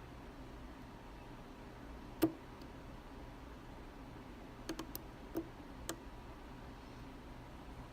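Small metallic clicks of a curved flag lock pick being wiggled into the warded keyway of an Abus D10 dimple lock: one sharp click about two seconds in, then a quick run of four or five lighter clicks a couple of seconds later.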